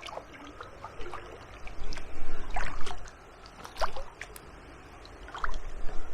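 Kayak paddle strokes in water: the blades dip and splash with water trickling off them, several uneven strokes, loudest about two to three seconds in.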